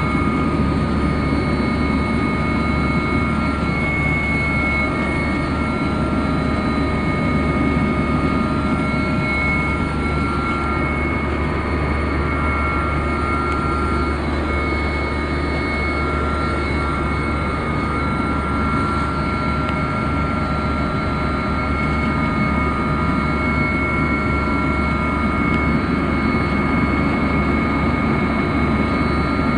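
Helicopter in flight heard from inside the cabin: a steady, loud drone of engine and rotors with a steady high whine over it.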